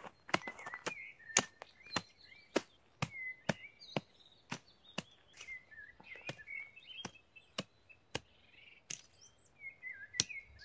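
Hatchet chopping into dry dirt ground, about two sharp strikes a second that slow near the end, with birds chirping between the strokes.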